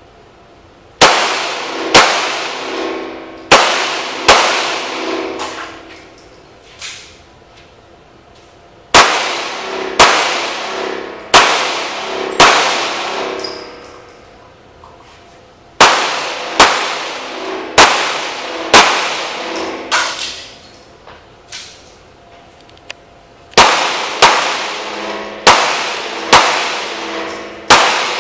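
Pistol shots echoing in an indoor range: about twenty shots in four strings, roughly one a second within each string, with pauses of a few seconds between strings.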